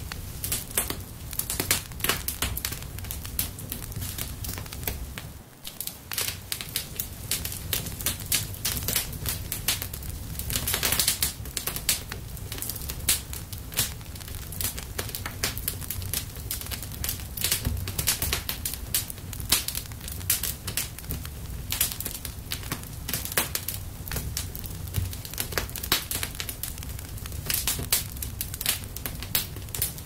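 Fire crackling, with many irregular sharp pops and snaps over a low rumble, easing briefly about five seconds in.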